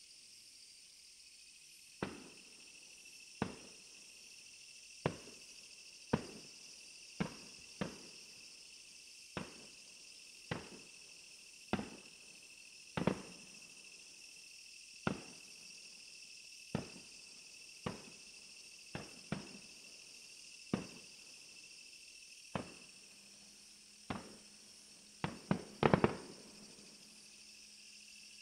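Firework shells bursting overhead one after another, about one every second or so from two seconds in, each bang fading off in echo, with a quick cluster of bangs near the end the loudest. A steady high-pitched insect chirring runs underneath.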